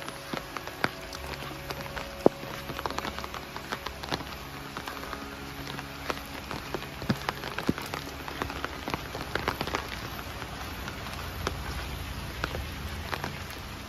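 Rain falling steadily, with many sharp, irregular taps of drops landing close by.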